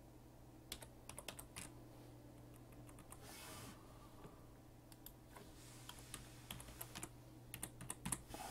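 Faint typing on a computer keyboard: short runs of key clicks about a second in, again past the middle, and a denser run near the end, over a low steady hum.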